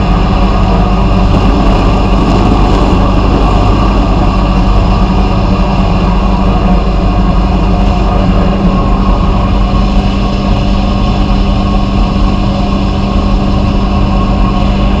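A machine running steadily and loudly: a constant low hum with an even hiss above it, unchanging throughout.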